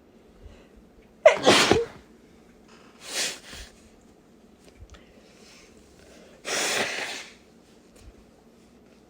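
A woman sneezing hard, three times: a sudden, loud sneeze just over a second in, a quieter one about two seconds later, and another strong one at about six and a half seconds.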